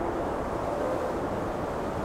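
Steady low rumble with a windy hiss, the ambience of an ocean liner under way at sea.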